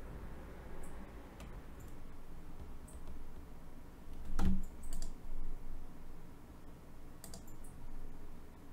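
Scattered computer keyboard and mouse clicks, with one louder knock about halfway through.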